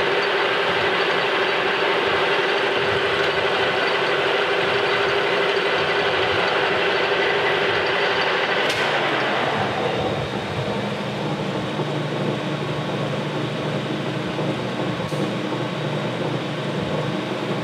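Metal lathe running, taking a cut on a bronze bushing held on a mandrel between centers. About nine or ten seconds in the lathe stops, and a lower steady hum carries on.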